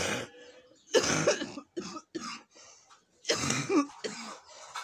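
A woman coughing repeatedly in short harsh bursts, in two bouts with a pause between. It is a chesty cough from a severe chest infection that has left her short of breath.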